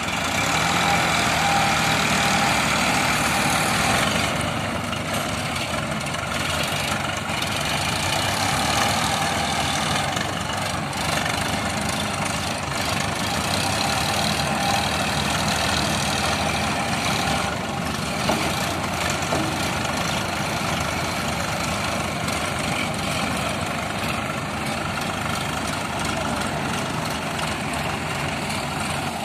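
Diesel engines of Sonalika farm tractors running steadily, a continuous engine drone with no break throughout.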